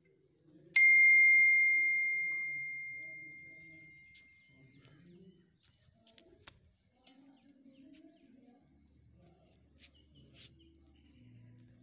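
A single bell-like ding about a second in, ringing on one clear tone with higher overtones and fading away over about four seconds: the notification-bell sound effect that goes with a subscribe-button animation.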